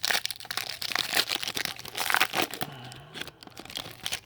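Foil wrapper of a trading card pack being torn open and crinkled in the hands, a dense crackling that stops abruptly near the end.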